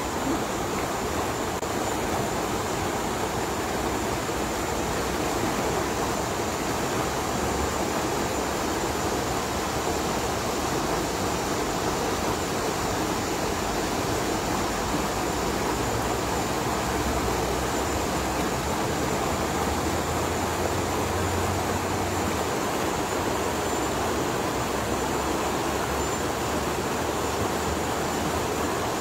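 Shallow rocky stream rushing steadily: an even noise of flowing water.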